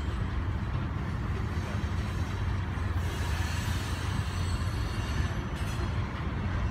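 Coal train's cars rolling past, a steady rumble of steel wheels on rail, with faint high-pitched squeal partway through.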